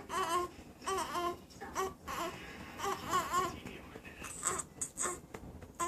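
Newborn baby fussing in short, wavering cries, several in a row over the first three and a half seconds, followed by a few shorter, breathier noises.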